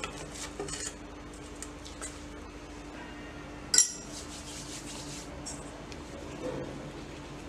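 Hands kneading soft potato dough in a stainless steel bowl: light scrapes and small clicks of fingers against the metal. One sharp metallic clink comes about halfway through.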